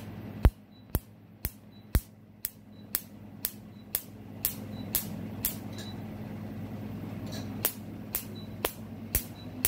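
Spectra XT Q-switched Nd:YAG laser handpiece firing pulses on the skin of an eyebrow: sharp snaps at a steady two a second, pausing once for about a second and a half past the middle. Each snap is a pulse breaking up the old eyebrow micropigmentation.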